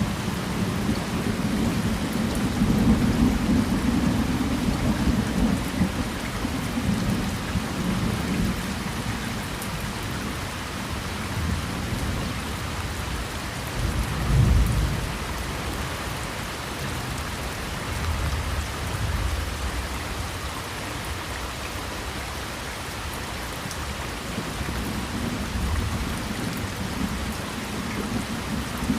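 Heavy rain pouring steadily on a car, with low rumbles swelling over the first several seconds, a short stronger one about halfway through, and more near the end.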